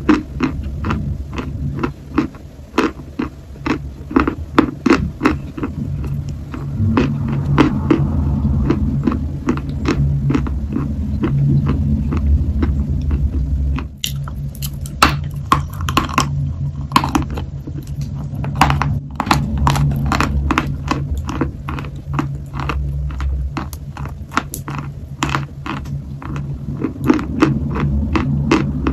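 Dry chalk being bitten and chewed close to the microphone: a dense run of crisp crunches, often several a second, over a low steady hum.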